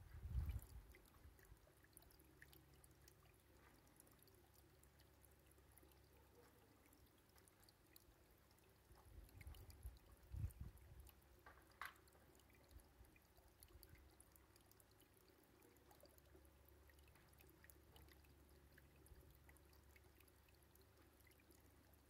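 Near silence: faint outdoor background, with brief low rumbles on the microphone right at the start and again about ten seconds in, and a single short tick just before twelve seconds.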